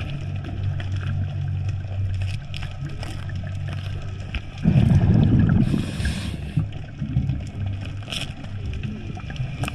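Underwater sound of a diver working among kelp and sea urchins: a steady low hum with scattered small clicks, and a loud rushing, bubbling burst about five seconds in that lasts over a second.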